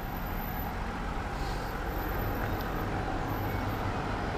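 Steady low rumble of motor-vehicle noise with a faint low hum, unchanging throughout.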